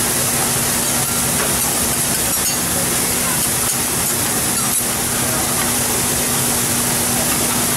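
Steady sizzling hiss of food and liquid steaming on a hot teppanyaki griddle, with a few light clicks of metal spatulas on the plate and a steady low hum underneath.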